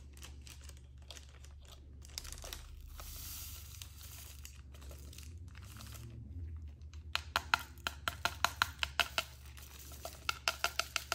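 Small plastic bag crinkling as it is handled. From about seven seconds in, a run of quick clicks, about three a second, as resin diamond-painting drills are shaken in a plastic sorting tray.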